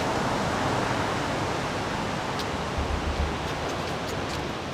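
Steady rushing noise with no clear tone, fading slightly, with a few soft low thumps about three seconds in.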